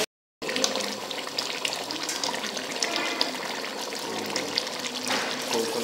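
Duck curry bubbling and crackling steadily in a large metal pot, with many small pops.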